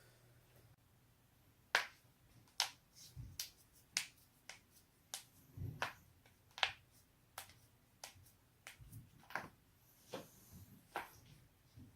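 A person's joints cracking: an irregular run of about twenty sharp pops, beginning nearly two seconds in, a few of them with a duller low thud.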